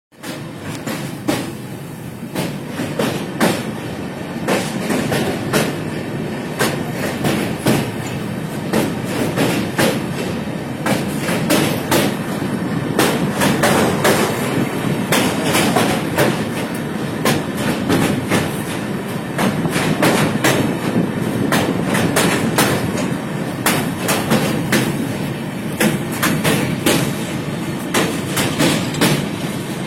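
Rail vehicle running on track: a steady rumble with frequent sharp clicks and clacks throughout.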